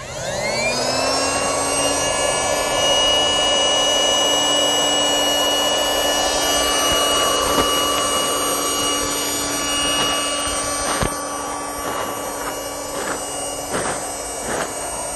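Small electric air pump switching on and spinning up to a steady whine, inflating the floor chamber of an inflatable boat. About eleven seconds in its sound eases a little and light clicks and knocks of handling come through.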